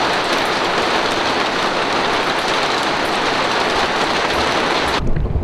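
A hailstorm beating on a canal boat's roof, heard from inside the cabin as a really noisy, dense, steady din of hail and rain. It cuts off abruptly near the end.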